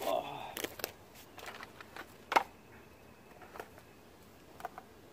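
Scattered light clicks and knocks of metal parts and tools being handled during a brake-pad change, the sharpest about two and a half seconds in.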